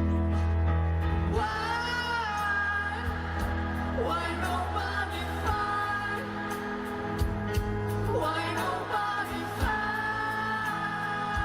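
Live pop song: a male lead singer holds two long high notes, the first about a second in and the second near the end, over steady sustained keyboard and bass chords.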